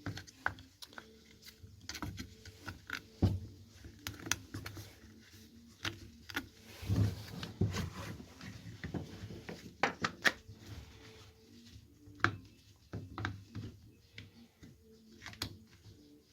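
Handling noises from fitting a drive belt onto an electric lawnmower's motor: scattered clicks, taps and light knocks of plastic and metal parts, with a few duller thumps.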